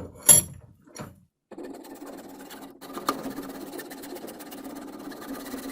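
A few sharp knocks and clicks of handling, then about a second and a half in a small electric power tool starts and runs steadily with an even buzzing hum, cutting through PVC pipe clamped in a vise.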